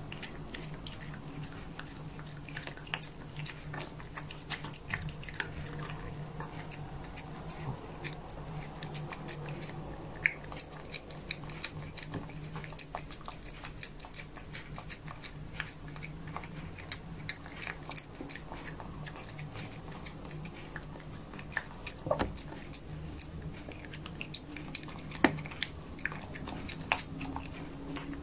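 Cat chewing crumbly food close to the microphone: a quick, irregular stream of small wet clicks and crunches, with a few louder clicks in the last third.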